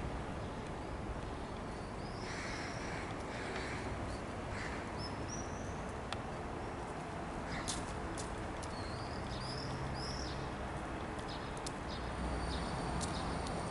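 Small birds chirping now and then, short high chirps that bend up and down, over a steady outdoor background hiss. A few sharp ticks come in the second half.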